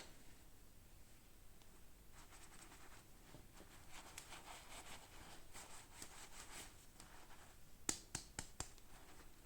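Faint rustling and scratching of hands handling toy packaging, then about four sharp clicks in quick succession near the end, the first the loudest.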